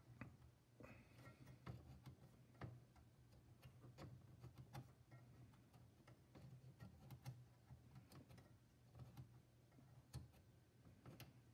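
Near silence with faint, irregular clicks about once a second as fingers press and rock a capacitor on a Tandy Color Computer 3 circuit board to snap its leads, over a low steady hum.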